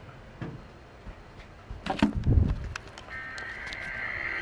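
Radio hiss with a few sharp clicks and a low thump near the middle, then about three seconds in an Emergency Alert System header begins over the radio: the two-tone digital data burst of the SAME code that opens an alert or test.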